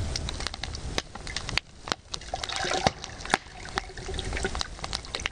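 Whiskey poured from a glass bottle into an enamel camp mug: a steady trickle of liquid with scattered sharp clicks.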